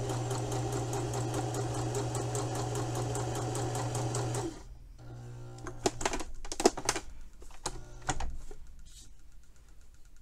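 Electric sewing machine stitching a narrow hem in sheer fabric: it runs at an even speed with a rapid, regular needle stroke, then stops about halfway through. It follows with a few short bursts of slow stitching and sharp clicks as the fabric is repositioned.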